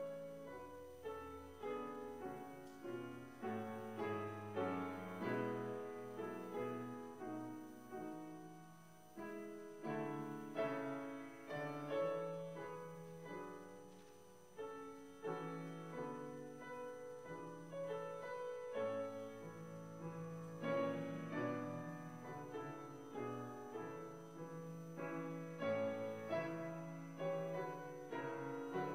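Solo piano playing a slow, quiet reflective piece of single notes and chords, each struck and fading away.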